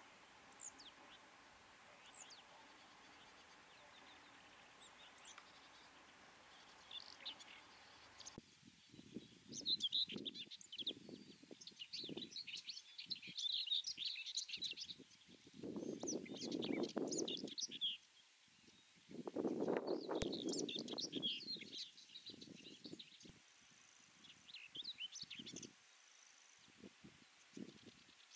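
Common whitethroat singing short, scratchy warbling phrases, each lasting one to three seconds and repeating every few seconds, beginning about a third of the way in over a steady hiss. Two bursts of low rumbling noise come in the middle, along with the song.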